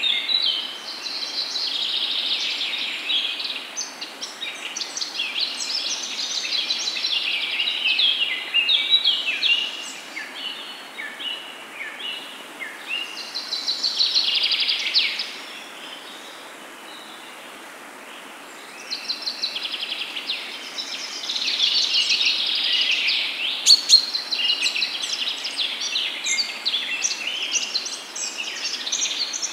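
Hot oil sizzling and crackling as lentil-and-onion fritters deep-fry in a pan, in dense rapid crackles that ease to a softer, steadier hiss for a few seconds past the middle, with one sharp tick later on.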